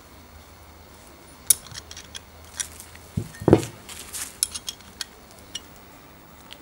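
Brass parts of a blowtorch burner and valve clicking and clinking as they are handled and taken apart, with a louder, duller knock about three and a half seconds in.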